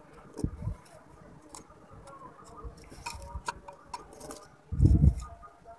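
Soil in a potted jade plant being scratched loose by hand and a small tool: light scraping with scattered small clicks and ticks. A dull low thump about five seconds in is the loudest sound.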